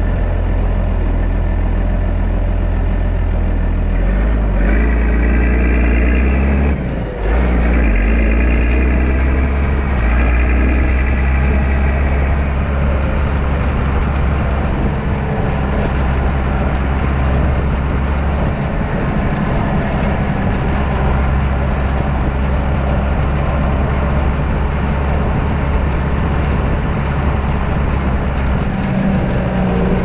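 Case IH Maxxum 5140 tractor's six-cylinder turbo diesel running as it drives, heard close to its upright exhaust stack. The revs climb from about four seconds in, dip briefly near seven seconds, climb again, then settle into a steady run.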